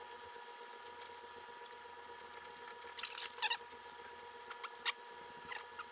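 A small bit twisted by hand scrapes and picks cured tank sealant out of rivet holes in an aluminium rudder skin. There are a few short scratchy squeaks, bunched around three seconds in and again near the end, over a faint steady hum.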